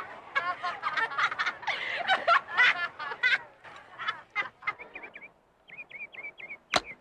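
A group of people laughing for about five seconds, then after a short lull a few bird chirps, and near the end one sharp crack of a golf driver striking a teed ball.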